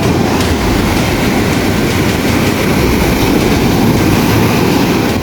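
Steady, loud rumbling noise of wind buffeting the microphone over the wash of the sea.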